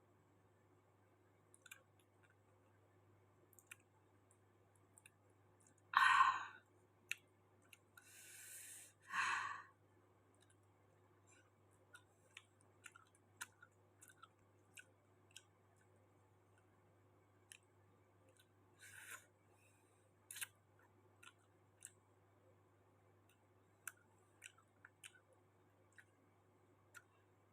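Close-up mouth sounds of someone eating: faint wet chewing and lip clicks, with a few louder short crunching or rustling noises around 6, 9 and 19 seconds in, over a steady low hum.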